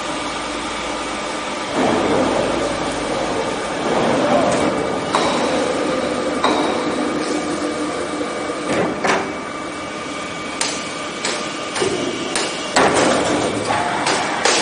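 Vertical log centering machine working on a veneer log: a steady machine hum with irregular clanks and knocks as its clamping arms and heads move on the log, the knocks coming more often in the second half.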